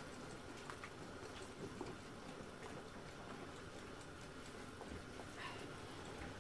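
Water boiling in a large stainless-steel stockpot on a gas burner: faint steady bubbling with scattered small pops.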